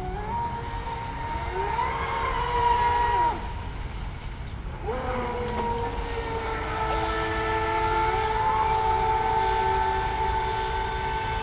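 Twin electric motors of an RC catamaran whining at high revs, two close pitches running together; the whine rises under throttle, drops away about three seconds in, then climbs back and holds steady.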